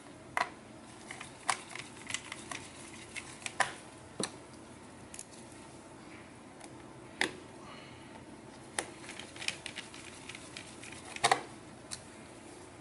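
Irregular small clicks and taps of a solid-state drive in its drive bracket being handled and pressed into a laptop's drive bay, with a louder cluster of clicks near the end.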